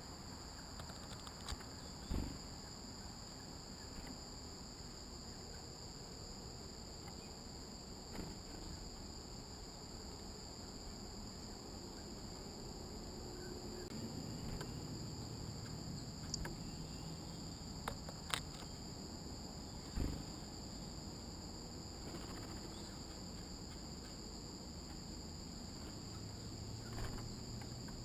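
Steady chorus of singing insects, a continuous shrill drone in two high bands, with a few scattered sharp taps on top.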